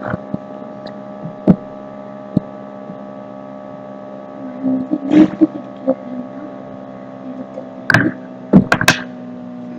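Steady electrical hum made of several even tones, with a few knocks and clicks from handling a small paint tin on a wooden table. The knocks are loudest near the end, as the tin is set down.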